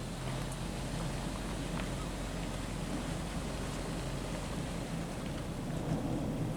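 Off-road 4x4's engine running with a steady low hum, wind buffeting the microphone, getting a little louder near the end.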